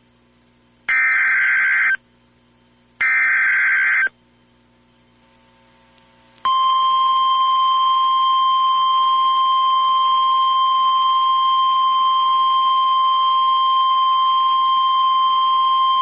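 Emergency Alert System SAME header: two short bursts of warbling digital data tones, about a second each, the encoded alert data. After a pause, a loud steady single attention tone near 1 kHz starts about six and a half seconds in, signalling that an alert message follows.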